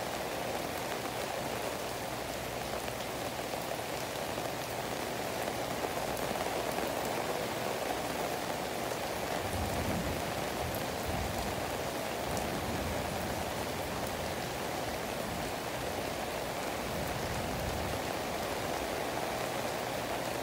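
Heavy rain pouring steadily on trees, leaves and ground in a downpour. A low rumble comes in about halfway through and again near the end.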